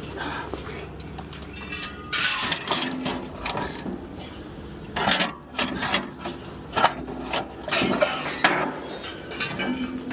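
Scrap metal pieces clanking, clinking and scraping as they are handled and shifted, with a run of sharp metal knocks from about two seconds in until near the end, over a steady low hum.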